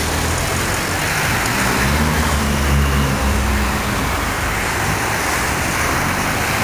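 Road traffic passing close by: a steady rush of tyres and engines, with a truck's engine hum swelling as it drives past in the middle.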